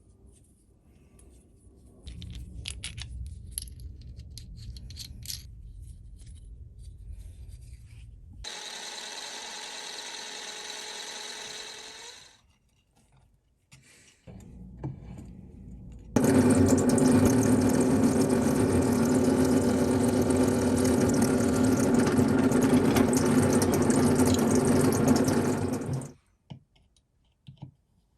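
Workshop power tool running in stretches. First a low hum with scattered scraping clicks, then a few seconds of steady hiss, then after a short pause a loud, steady machine run of about ten seconds that cuts off abruptly.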